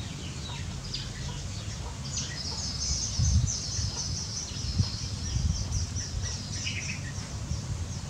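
Birds chirping, with a rapid high trill starting about two seconds in and lasting a few seconds, over a steady low rumble with a couple of soft thumps.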